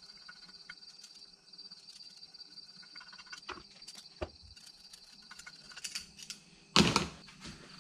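Small screwdriver tip scraping and ticking in the crevices of an aluminium motorcycle crankcase half, picking off baked-on black grime, with one short, louder scrape near the end. Crickets chirp steadily in the background.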